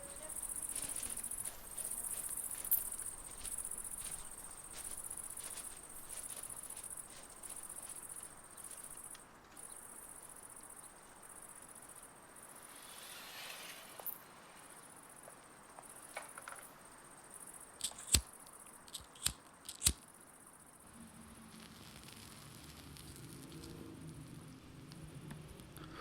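Crickets chirping in a high, pulsing trill that fades in the second half, with a few sharp clicks about two-thirds of the way in.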